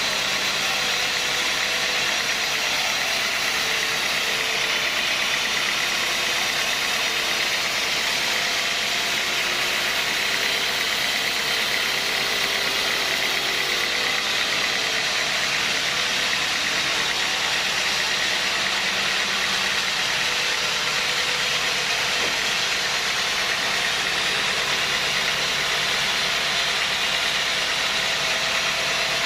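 Sawmill machinery running steadily: a constant mechanical drone with several steady tones, unchanged throughout.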